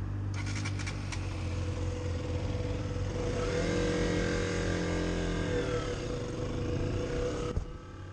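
KTM 125 Duke's single-cylinder four-stroke engine running at idle, then pulling away, its pitch rising and falling as it accelerates and eases off. A few clicks come about half a second in, and the sound drops away shortly before the end.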